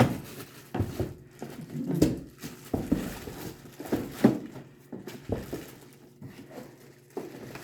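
Scattered knocks, clunks and handling noises as mower parts and packaging are moved about, with a faint murmur of voices.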